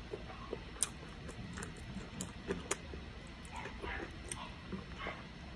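A person chewing a burger with fries, giving soft wet mouth sounds and scattered small clicks and smacks, two sharper ones about a second in and near the middle.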